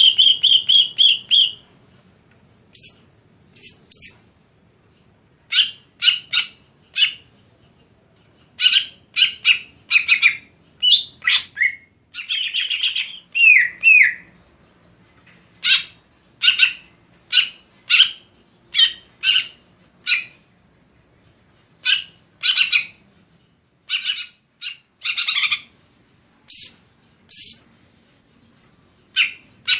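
Cucak ijo (green leafbird) singing in short bursts of rapid high chirps and whistles, with brief pauses between phrases and a couple of quick downward-gliding notes about halfway through.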